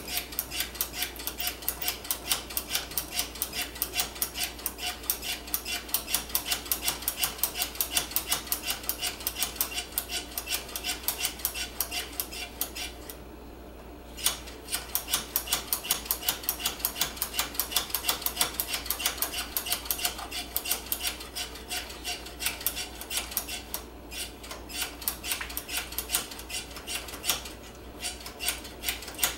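Rear brake pedal of a Suzuki GSX-R750 being pumped quickly to bleed a newly fitted brake line, giving fast, even metallic clicks, about three a second, with a short pause near the middle. The line is still being filled and purged of air, before the pedal firms up.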